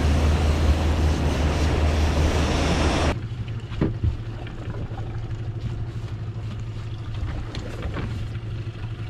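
Outboard motor running under way, with rushing wake water and wind noise and a strong low hum. About three seconds in, this cuts off abruptly to a much quieter low steady hum with a few faint clicks.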